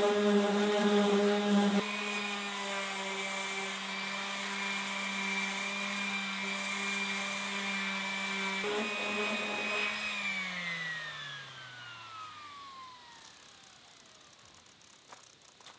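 Power tool motor running with a steady hum and hiss. About two-thirds of the way through it is switched off and winds down, its pitch falling smoothly for a few seconds as it fades out.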